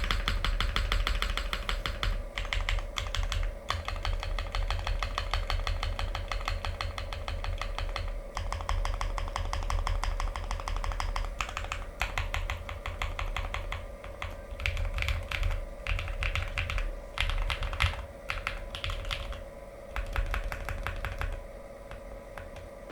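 Keystrokes on a Glacier 80 custom mechanical keyboard with lubed Epsilon linear switches on a polycarbonate plate and GMK keycaps: modifier keys pressed in quick runs of clacks. The runs thin out and stop shortly before the end.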